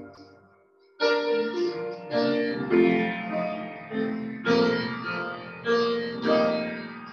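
Grand piano playing slow, sustained chords. The sound falls away almost to nothing just after the start, and the chords come back in about a second later. Several more chords are struck, each left to ring, and the last one dies away near the end.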